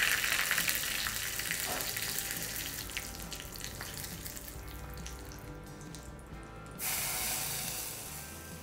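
Hot oil sizzling in a small steel tempering ladle as dry red chillies are stirred in it, the sizzle slowly dying down. About seven seconds in, a short, louder hiss as the hot tempering is poured into the pot of rasam.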